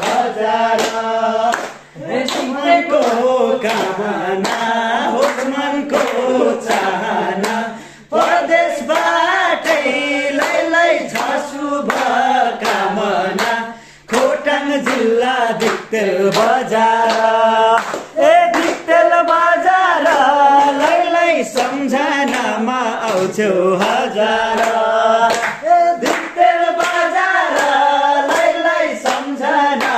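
A group of men singing a Nepali folk song together in chorus, clapping their hands in time. The singing breaks off briefly between verses about 2, 8 and 14 seconds in.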